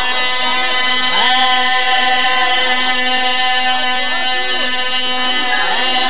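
A man's voice holding one long, steady sung note in a qasida chant, with a few brief rising vocal glides over it.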